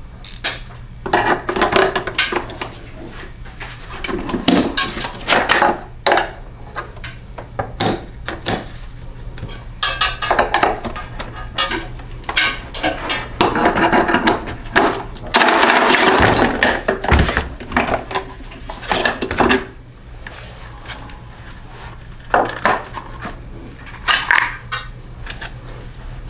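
Hand tools and loose metal parts of a Toro 21352 push mower clinking and clattering on and off as the mower is taken apart, with a longer, louder rattle about fifteen seconds in. A steady low hum runs underneath.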